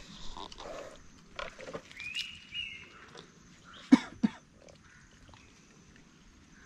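Dry twigs and brush rustling as someone pushes through a tangle of sticks, with two sharp cracks about four seconds in as a branch is grabbed. A short high chirp is heard about two seconds in.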